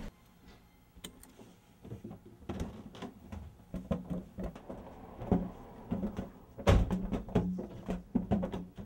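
Irregular knocks, thumps and rubbing inside a car cabin as a man scuffles with a rubber balloon among the seats. The heaviest thump comes about two-thirds of the way through.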